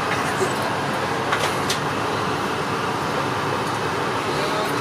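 Steady rushing cabin noise inside an Airbus A380 on the ground, with a couple of light clicks about a second and a half in.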